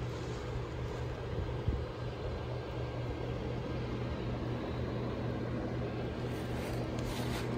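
Built-in blower fan of a Gemmy airblown inflatable running steadily, a low hum over a constant rush of air that keeps the figure inflated. One brief knock a little under two seconds in.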